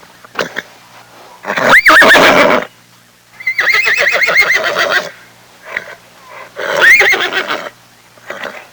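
Horse neighing three times: a call that rises and falls in pitch about two seconds in, a longer quavering whinny around the middle, and a shorter call near the end.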